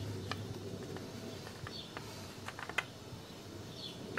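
Oil filler cap on a Kawasaki ZX-6R's engine cover being unscrewed and lifted off by hand: a few light, irregular clicks and taps, the sharpest about three seconds in.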